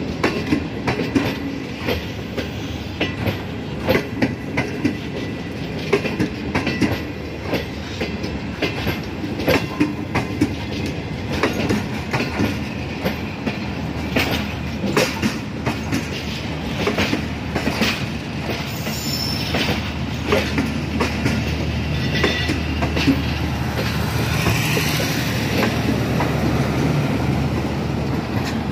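Passenger coaches of a departing express train rolling past, their wheels clattering over rail joints in an uneven run of sharp clacks over a steady rumble. Near the end the clacks thin out into a steadier low rumble as the last car passes.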